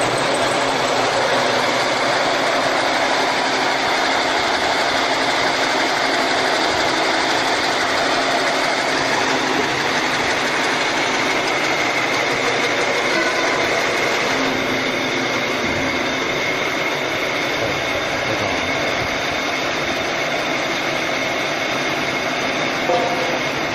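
A 60-spindle horizontal hydraulic drilling machine running on a steel scaffolding tube, a loud steady machine noise with a faint high whine. There is one brief knock near the end.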